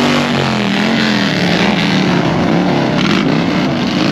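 Custom bagger motorcycles running at low speed in a slow procession, their engines' pitch wavering up and down as throttles are worked.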